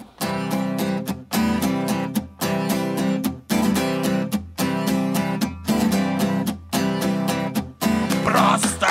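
Music starts: strummed guitar chords in a steady rhythm, with a brief break about once a second. A voice begins singing near the end.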